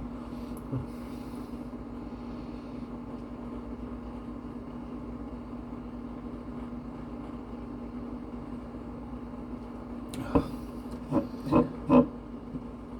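A steady low hum, with four short louder sounds about ten to twelve seconds in.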